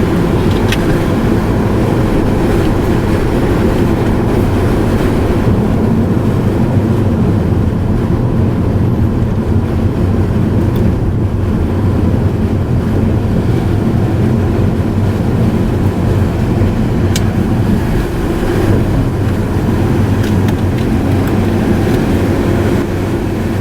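A car driving: steady road and engine noise with a low hum, unbroken throughout.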